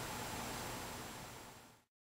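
Steady faint hiss of room tone and recording noise that fades away and drops to dead digital silence near the end.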